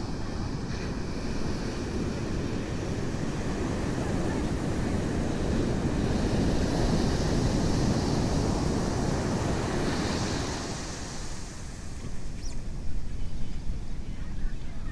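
Ocean surf breaking and washing up a sandy beach: a steady rush of noise that swells about halfway through and eases off. Wind buffets the microphone unevenly near the end.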